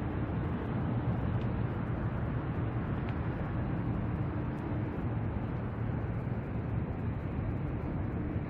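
Steady rumble of distant road traffic, even and unbroken, with a faint steady hum.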